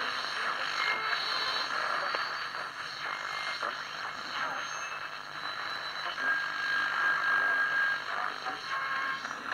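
A 2P3 superheterodyne AM medium-wave transistor radio hissing and crackling from its speaker as it is tuned between stations, with short steady whistling tones.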